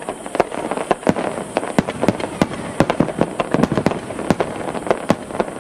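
Aerial firework shells bursting in a dense barrage: several sharp bangs a second with no pause, over a continuous noisy background.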